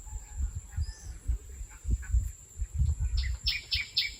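A bird calling in a fast series of short, high chirps, about four a second, starting about three seconds in, over a low rumbling noise.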